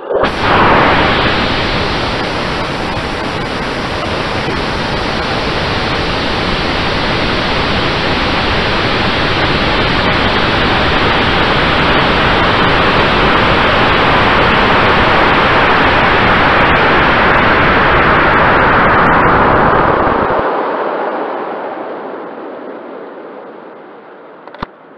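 Onboard sound of a high-power rocket launching on an M2045 Blue Streak motor: a sudden loud start as the motor lights, then a steady loud rushing hiss of motor and airflow over the airframe. The deep part of the rush cuts off about twenty seconds in and the hiss dies away over the last few seconds as the rocket coasts higher.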